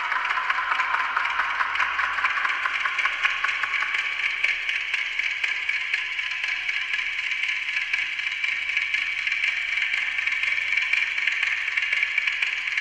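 Amplified ticking of a Westclox Silver Bell Monogram alarm clock fed through a voltage-controlled digital delay and a bank of fixed delays, so the ticks pile up into a dense, steady rattle of overlapping clicks. The pitch of the ticking drifts upward over the first few seconds as the delay time changes.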